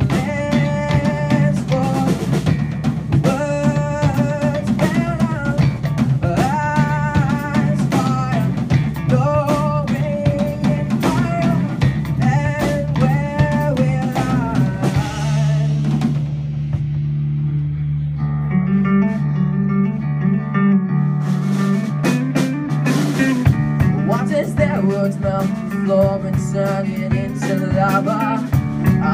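Live rock trio playing an instrumental passage: electric guitar lines over bass guitar and drum kit. About fifteen seconds in, the drums drop out for several seconds, leaving guitar and bass holding a low note, then the drums come back in.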